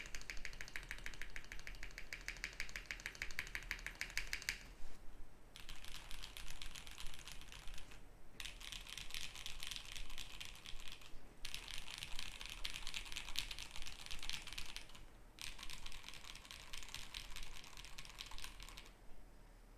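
Fast typing on a KBD67 MKII custom mechanical keyboard with lubed Jwick Black linear switches, an acrylic plate and Akko silent keycaps. The dense clatter of keystrokes comes in runs of a few seconds, broken by brief pauses, and stops a little before the end.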